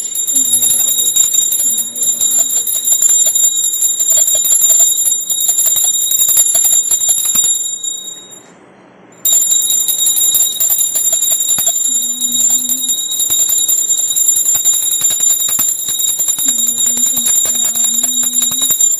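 Puja hand bell rung continuously with rapid strikes of its clapper, giving a steady high ringing. It stops for about a second, a little past the middle, then rings on.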